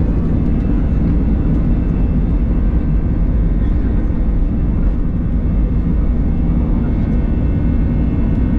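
Airbus A320 jet engines at high thrust during takeoff and climb-out, heard from inside the passenger cabin: a steady, loud low drone with several faint steady tones above it.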